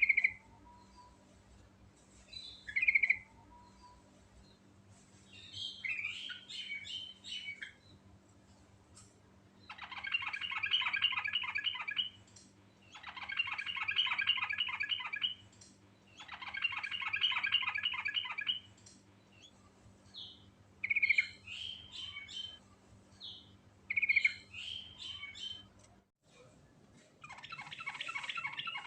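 Yellow-vented bulbul (trucukan) singing: short bubbly whistled phrases alternating with rapid rattling runs of fast repeated notes, each run about two seconds long, four times over.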